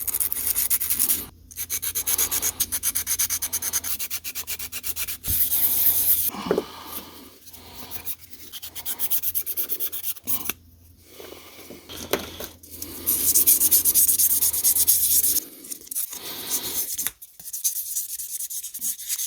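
Coarse sandpaper (100 and 180 grit) rubbed rapidly back and forth by hand over rusty, pitted steel, in runs of quick strokes with short pauses between them: the rust pits are being sanded out.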